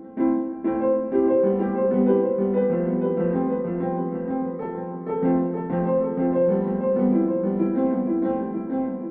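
Background piano music: a melody and chords played on a piano, with new notes struck every fraction of a second.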